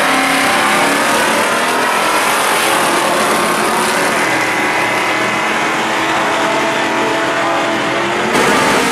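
Two drag-racing cars, a 1955 Chevy hot rod and a second car, launching off the line and accelerating hard down the strip at full throttle, the engine pitch climbing through the gears.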